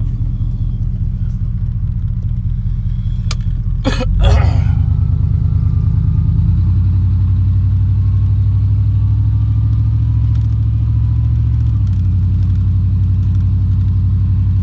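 Truck engine running while driving, with a few sharp clatters about four seconds in, after which the engine pulls harder and louder and its note shifts twice.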